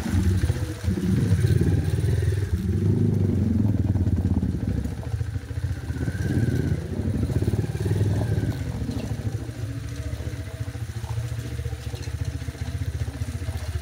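Motorcycle engine running while under way, heard from the rider's seat; it is loudest in the first half and eases off slightly after about nine seconds.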